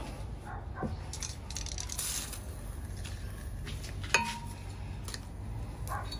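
Aerosol lubricant can spraying through its straw nozzle onto a steel cylinder liner: a brief hiss about two seconds in, with light handling clicks and one sharp metallic clink just after four seconds.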